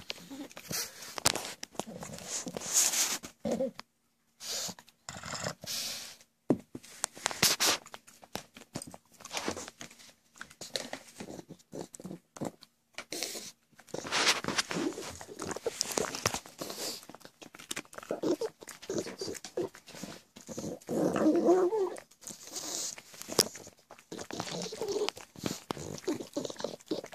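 A pug making its noisy snorting, grunting sounds in uneven bursts while it noses at and eats a treat.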